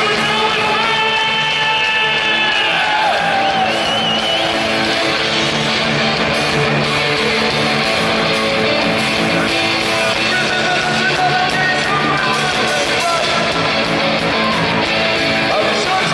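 Live punk rock band playing loud: electric guitars, bass and drums, with singing.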